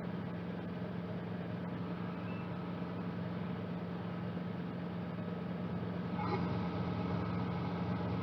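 Cabri G2 helicopter's piston engine and rotors running steadily, a constant drone with a steady low hum. There is a brief higher sound about six seconds in.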